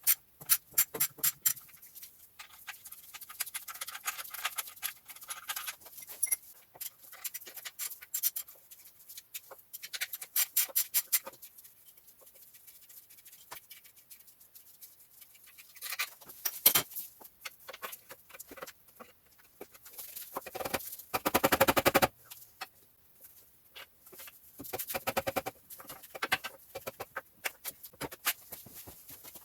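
Ratchet wrench clicking in spurts of rapid strokes as the 16 mm alternator bolts are undone, with a louder, faster run of clicks about twenty seconds in.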